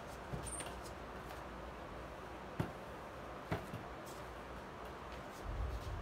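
Manual screen-printing press and squeegee being worked: a brief high squeak about half a second in, two sharp knocks about a second apart, and a low rumble near the end as the screen is raised.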